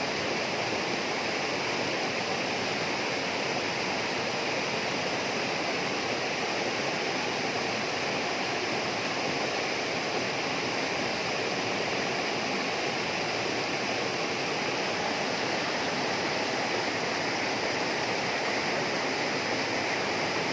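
Steady tropical rainforest ambience: a continuous, unbroken rushing wash like running water, with a steady higher hiss over it.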